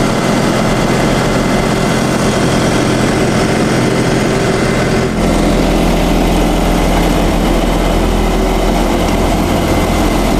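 Tecnoma Laser self-propelled sprayer's engine running steadily, driving the hydraulics that raise its ride height. About five seconds in, the engine note changes and its low hum grows stronger.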